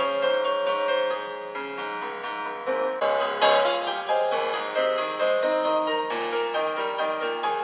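Instrumental piano music, a steady flow of sustained notes with no singing.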